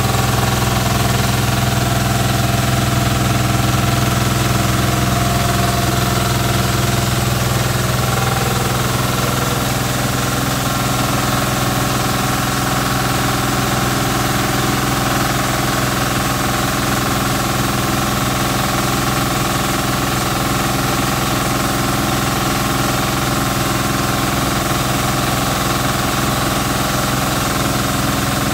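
Rice milling machine running steadily, driven through its V-belt by a small engine: a constant engine drone mixed with the mill's whir.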